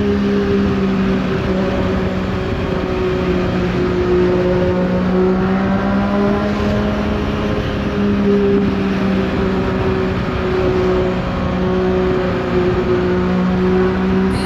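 Yamaha XSR900's inline three-cylinder engine running under way at a fairly steady engine speed, the pitch rising and falling only slightly, with wind noise.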